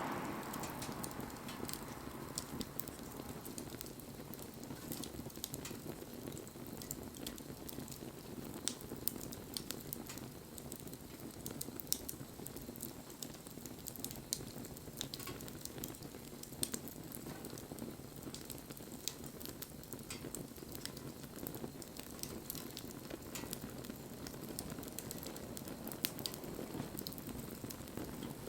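Wood bonfire burning: a steady low hiss with frequent small crackles and pops from the burning wood.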